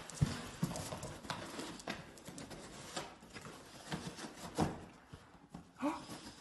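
A pug nosing and pawing into a cardboard box on a tile floor: the box knocks and scrapes and there are irregular clicks, with a brief pitched sound near the end.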